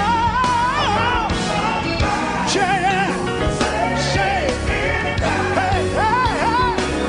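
Gospel song: a lead singer's drawn-out, wavering vocal runs over a full band with drums and bass.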